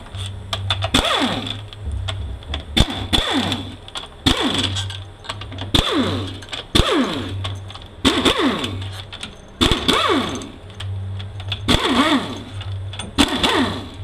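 Handheld pneumatic tool backing out the 7/16 in. valve-body bolts on a 46RE automatic transmission, run in about a dozen short bursts, each whine falling in pitch as the tool spins down.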